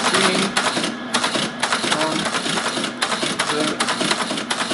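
ASR-33 Teletype clattering as its keyboard is typed on, the keys and typing mechanism making a dense, continuous run of mechanical clicks and clacks.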